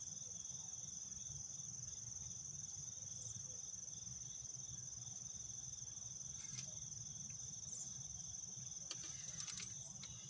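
Steady, high-pitched insect chorus trilling without a break over a low background rumble, with a few faint clicks near the end.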